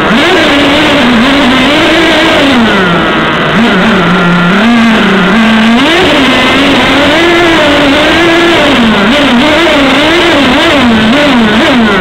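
Kyosho Mad Force Kruiser RC monster truck's two-stroke nitro engine revving up and down again and again as the truck is driven, its pitch rising and falling every second or so. The engine is tuned to run rich.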